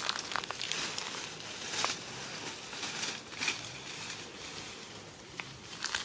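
Dry leaves and twigs rustling and crackling under someone's hands and body as they push into undergrowth, with irregular sharp snaps.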